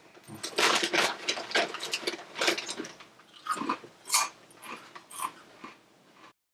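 Crinkling of a plastic snack bag as a hand comes out of it, and crunching as a crunchy snack is chewed, in irregular rustles and crunches that thin out near the end.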